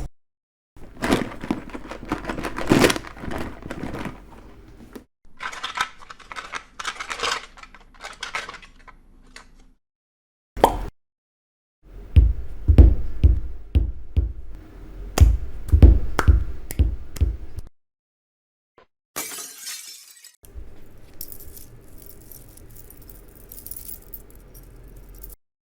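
A run of separate film sound-effect clips with short silences between them: glass breaking and shattering, clinks and rattles, and a stretch of heavy knocks and crashes, with some music.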